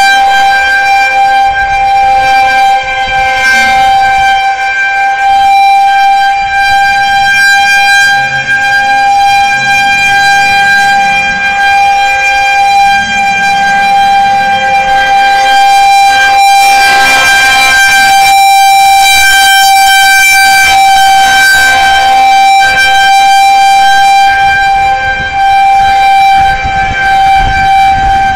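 Federal Signal 2001-130 electromechanical outdoor warning siren sounding a tornado warning, holding one steady high tone at full speed.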